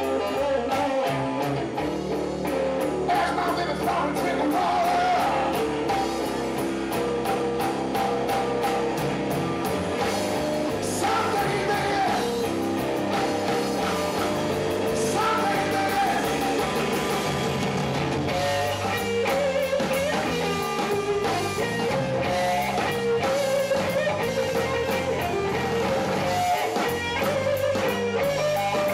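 Live blues-rock band playing: a Stratocaster-style electric guitar takes a lead solo with held, bending notes over bass and a drum kit.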